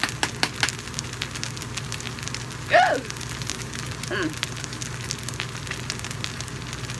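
Noodles sizzling and crackling in a hot skillet as spicy garlic sauce goes in, with a cluster of sharp crackles in the first second. Two brief squeaky sounds come about three and four seconds in, the first one the loudest thing heard.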